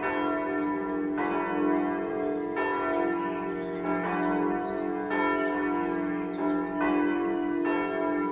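Several swinging church bells ringing together in a full peal. Their strokes overlap in an uneven pattern, a fresh stroke coming roughly every second, while the low hum of the bells rings on between strokes.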